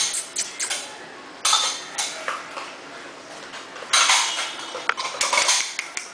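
Kittens playing on a tile floor: scattered light clicks and clattering, with short rustling bursts about a second and a half in and again about four seconds in.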